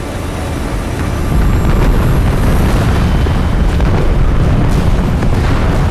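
Dense, continuous rumble of many bomb explosions from a bombing run, swelling over the first second and a half and then holding loud.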